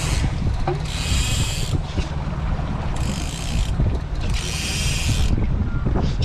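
Fishing reel ratcheting in repeated bursts of about a second each, with short pauses between, over a steady low rumble.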